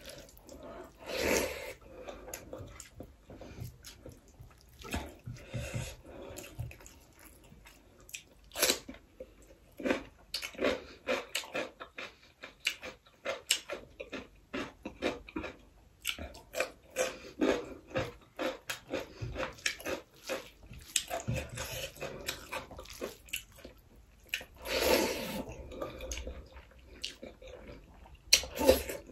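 Close-miked eating sounds: fingers squishing rice and dal together on a plate, with wet chewing and lip smacking in many short clicks, and a couple of louder, longer wet bursts about a second in and near the end.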